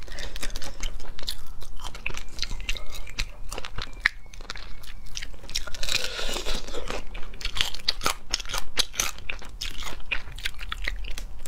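Cooked crayfish shells cracking and crunching as they are broken apart by hand and bitten, with close-up chewing. Many short, sharp, irregular cracks, thickest about six seconds in.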